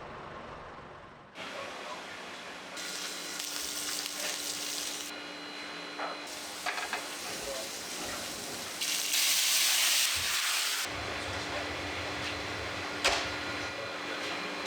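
Food sizzling and frying in a pan, in a run of short cuts where the hiss jumps louder and softer, with a few sharp knocks of utensils, the loudest near the end.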